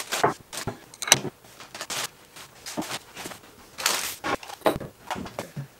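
Sapele boards being handled and set down on a workbench: irregular wooden knocks and taps, with a longer sliding scrape of wood on wood about four seconds in.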